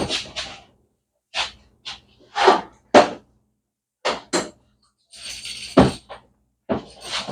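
Tools and metal parts being handled on a workbench: a string of separate knocks and clatters, with a short hissing stretch a little past halfway.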